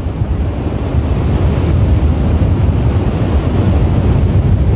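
Wind buffeting the microphone, a loud low rumble, over the steady rush of ocean surf.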